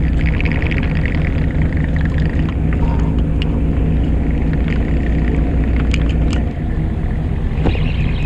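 Fishing boat's engine running steadily with a low, even rumble, a few light clicks over it; the deepest part of the rumble drops away about six and a half seconds in.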